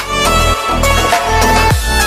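Background music: held melody notes over a beat of low, deep drum hits.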